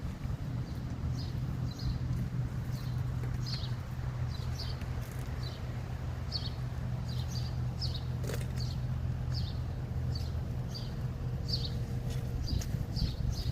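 Steady low hum of an idling engine, with short high bird chirps repeating over and over.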